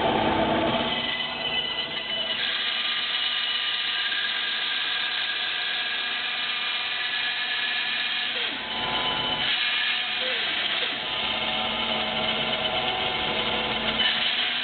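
Handheld power tool motor running steadily with a high whine while cutting a wooden ring on a circle jig, with a brief dip in sound about eight and a half seconds in.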